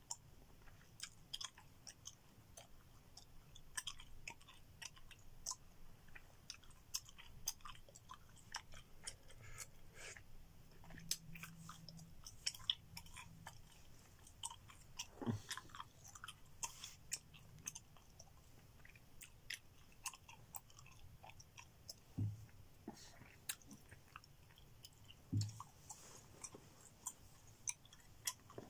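Gum chewing close to the microphone: an irregular, continuous run of small mouth clicks.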